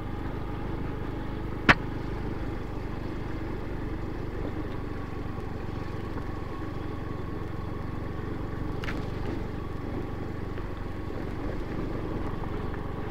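Small motor scooter engine, a Yamaha Mio, running steadily at low speed on a dirt track. A single sharp click or knock comes near the start.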